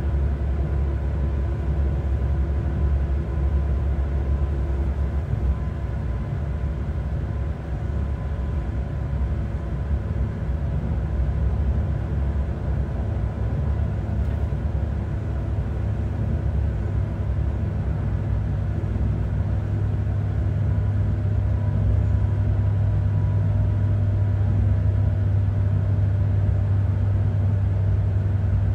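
Pesa Link class 632 diesel railcar running along the line, heard from inside: a steady diesel engine drone with rail rumble. The low engine note rises a little about eighteen seconds in and holds.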